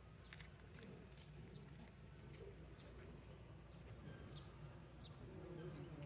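Near silence: a faint steady low hum of outdoor ambience, with a few short, faint high chirps from small birds scattered through it.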